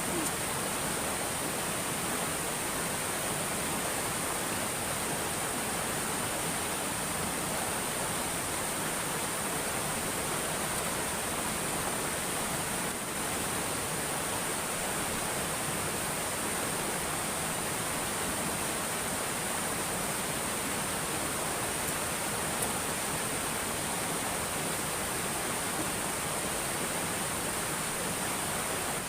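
Steady, even rushing noise with no breaks and a constant high hiss on top, like flowing water heard outdoors.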